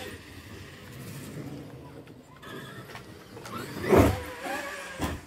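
Traxxas X-Maxx electric RC monster truck running, its brushless motor and drivetrain whining steadily. About four seconds in there is a loud impact as the truck hits down hard, and a smaller knock comes near the end.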